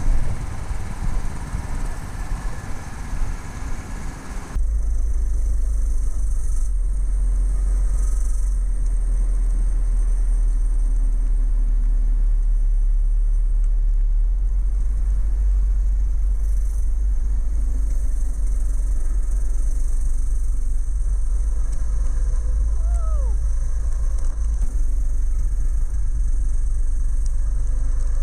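A go kart's 212cc engine running under changing throttle while being driven. About four and a half seconds in, the sound switches to a steady, heavy wind rumble on the microphone that buries most of the engine, as it does when driving at speed.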